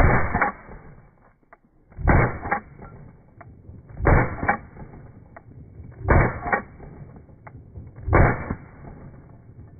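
Glock 17 9mm pistol fired five times at an even pace, one shot about every two seconds, each report followed by a fainter repeat about half a second later.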